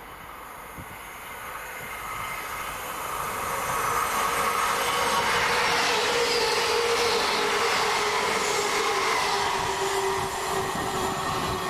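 A long Great Western Railway passenger train running through the station at speed. The rush of its wheels on the rails grows louder over the first few seconds, holds steady with a high whine, and eases off near the end as the train clears.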